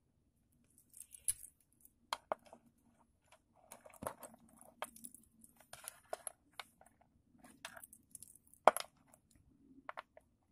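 Scattered light metal clicks and rustles of a steel link watch bracelet and small tools being handled on a wooden table, with one sharper click about three-quarters of the way through, as the bracelet is fitted back together.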